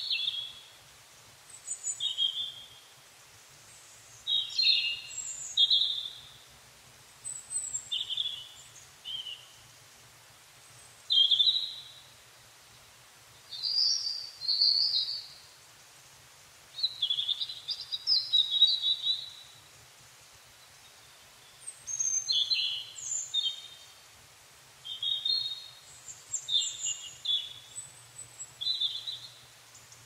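A songbird singing short, varied, high warbled phrases of about a second each, with pauses of a second or two between them.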